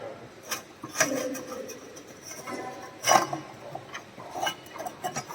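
Metal workpiece being handled and set in place for clamping: a few sharp knocks and clicks, the loudest about three seconds in, with light scraping between them.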